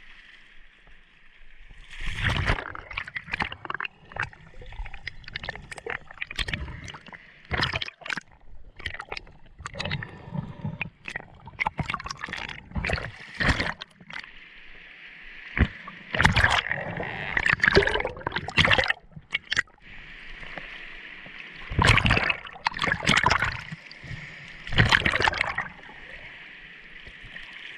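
Water splashing and sloshing in irregular bursts, some loud, over a steady hiss.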